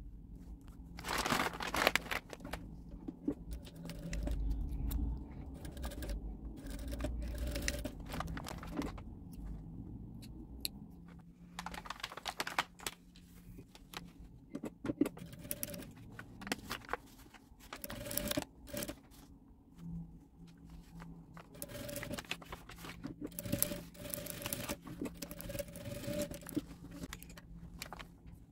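Fabric and kraft paper rustling and scraping as a towel bath mat is handled and fed under an industrial sewing machine, with the machine's motor humming and short stretches of stitching.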